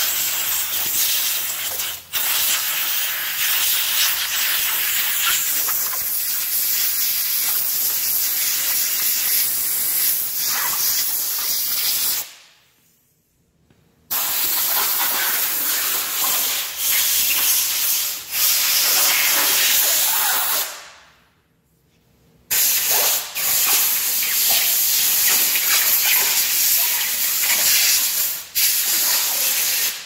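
Compressed air hissing from an air nozzle in long, loud blasts, with two pauses of near silence about 12 and 21 seconds in.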